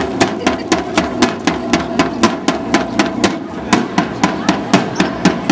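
Marching snare drum beaten with two sticks in a steady march beat, about four strokes a second.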